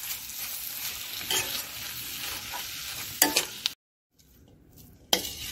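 Egg and vegetable mixture sizzling in oil in a stainless steel kadai while being stirred with a spatula, which scrapes sharply against the pan a few times as the mixture is cooked down until dry. About two-thirds of the way through, the sizzle cuts out briefly and comes back fainter.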